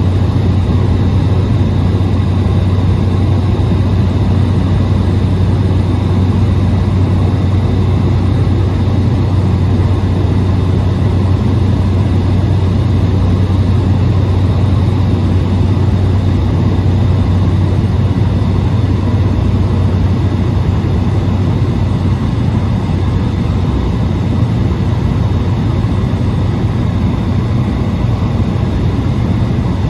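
Cessna 208 Caravan's single turboprop engine and propeller heard inside the cabin: a loud, steady drone with a deep hum and a few faint high steady tones.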